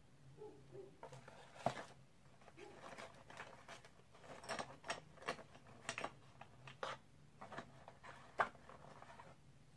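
Small hard-plastic packets and a plastic case being handled: an irregular run of clicks, taps and scratchy rustles, the sharpest about two seconds in and near the end.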